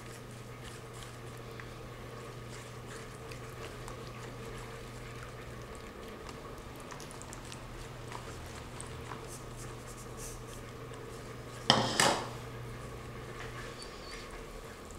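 A whisk stirring cornmeal into a thin batter in a plastic bowl: soft scraping and light ticks against the bowl over a steady low hum, with a sharp double knock about twelve seconds in.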